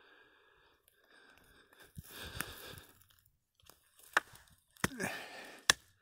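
Footsteps crunching over dry pine needles, twigs and old snow on a forest floor, with several sharp snaps or clicks.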